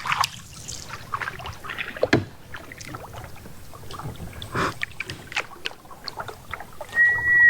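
Canoe being paddled through shallow water: paddle strokes dipping, splashing and knocking every second or so. Near the end, a loud, clear whistle-like note holds steady and then slides down in pitch.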